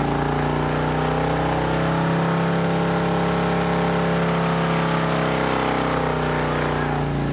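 Harley-Davidson Milwaukee-Eight VVT 121 V-twin running under load on a chassis dyno. Its engine note climbs gently and eases back near the end as the dyno load is varied.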